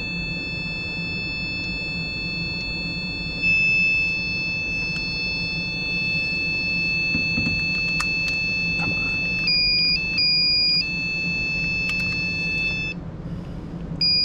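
Handheld power-probe circuit tester sounding a steady high-pitched electronic tone as its tip applies 12 volts to the window regulator motor connector. The tone shifts to a different pitch twice for about a second around the middle and again near the end, as the probe's contact or reading changes.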